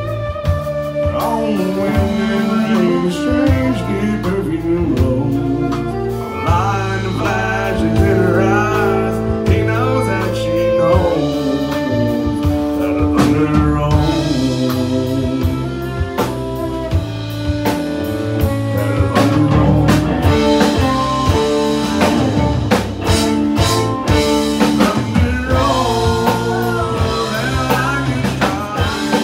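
Live country band playing an instrumental passage, with drum kit, electric and acoustic guitars, bass and fiddle.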